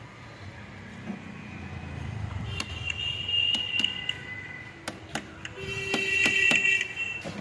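Pliers scraping and clicking against a car battery terminal to clean off crusted corrosion that can stop the car from starting. There is a high metallic squeak with sharp clicks from about two and a half seconds in, strongest near the end.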